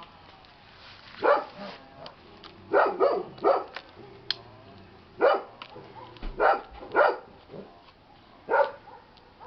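A dog barking, about eight short barks alone or in quick pairs, with pauses between.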